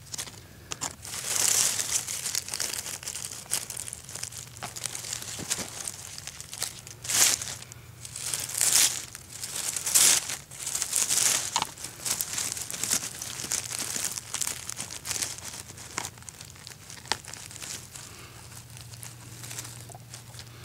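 Dry pine needles and dead leaves rustling and crackling in irregular bursts as they are pulled and brushed aside by hand, clearing the forest floor around porcini mushrooms.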